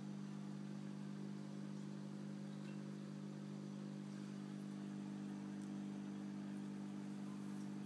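Aquarium air pump humming steadily, a low electrical buzz, driving the bubble curtain in the tank, with a few faint ticks over it.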